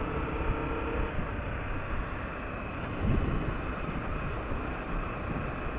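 Motorcycle engine running at road speed under steady wind noise on the microphone, swelling briefly louder about three seconds in.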